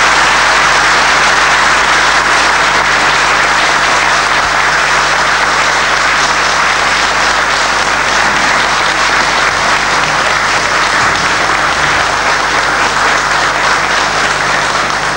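Long, steady applause from an audience, many people clapping at once.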